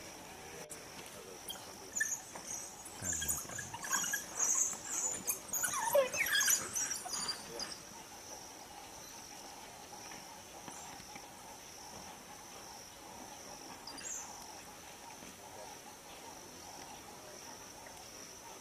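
African wild dogs twittering and squealing in a burst of short high-pitched calls while feeding at a kill, starting about two seconds in and dying away after a few seconds. A steady high insect drone runs underneath.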